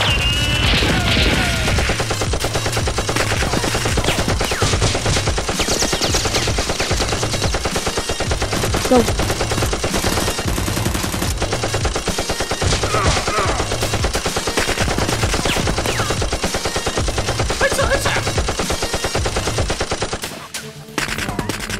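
Rapid automatic gunfire sound effects, a sustained run of fast shots, with background music underneath; the firing eases off near the end.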